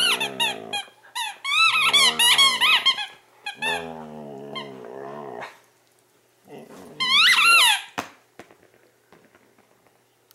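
Border collie chewing a purple rubber squeaky toy, squeezing out several runs of high squeaks while growling low between and under them. The squeaking and growling stop about eight seconds in.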